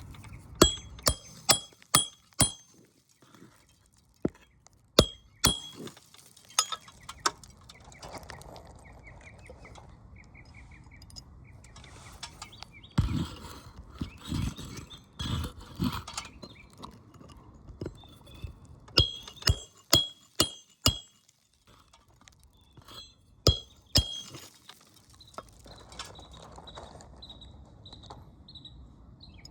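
Hammer blows ringing on a metal roof snake, driving roofing nails in under the overlapping asphalt shingle course. The blows come in quick runs of four or five, with a few duller thuds in the middle.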